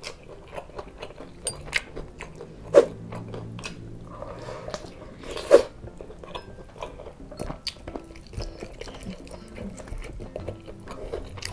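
Close-up mouth sounds of a person chewing grilled chicken and rice eaten by hand, with many small clicks through the chewing and two louder sharp sounds about three and five and a half seconds in.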